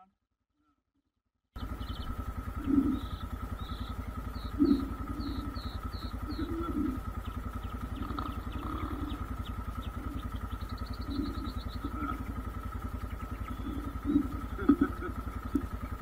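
A motorcycle engine idling steadily with a fast, even pulse, cutting in abruptly about a second and a half in. Birds chirp over it, with a short trill near the middle.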